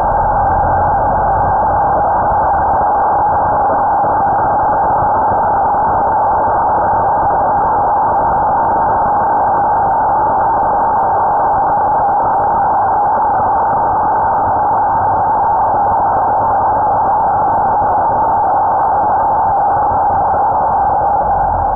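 EGO Power+ CS1611 56V brushless cordless chainsaw running at full speed with no load. Its motor and chain make a steady, high whine.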